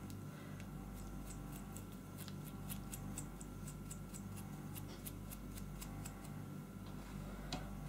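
Light, rapid ticking at about three to four ticks a second: a paintbrush loaded with diluted PVA glue being flicked to spatter the glue.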